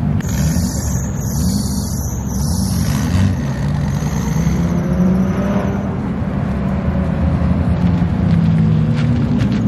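Car engine running, its pitch rising and falling as the revs change.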